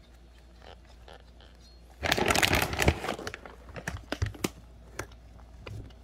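A kitten crunching food from its bowl, with scattered crisp clicks of chewing. About two seconds in there is a loud crackling rustle lasting about a second.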